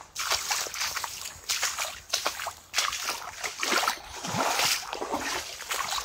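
Footsteps wading through a shallow, stony creek, the water sloshing and splashing with each step, about once a second.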